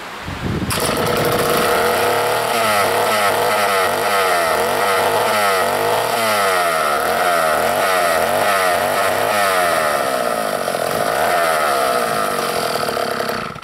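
Vintage Sears D-49 80cc two-stroke chainsaw engine catching under a second in and running, its speed wavering up and down, on its first start after being mounted on a chainsaw mill. It cuts off suddenly at the end.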